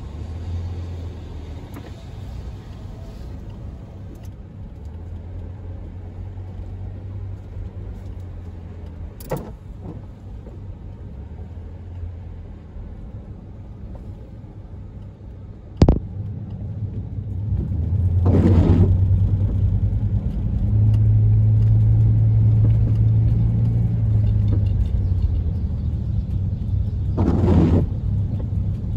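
Ford E-350 van's engine rumbling inside the cab as it drives over wet pavement, getting louder a little past halfway as it picks up speed. A sharp click comes about halfway through, and there are two brief swishes in the second half, the last of them the windshield wiper sweeping.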